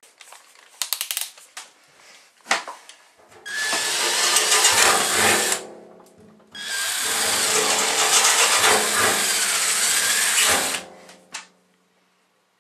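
Power drill running in two long bursts, about two seconds and then about four seconds, after a few light clicks.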